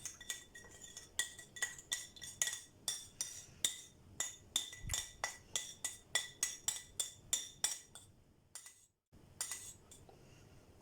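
A metal spoon stirring a liquid mixture, clinking against the side of the container about four times a second, each clink ringing briefly. The stirring stops about eight seconds in, and a few more clinks follow near the end.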